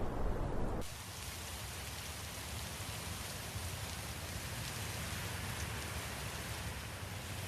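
A low rumble cuts off suddenly less than a second in and gives way to steady heavy rain.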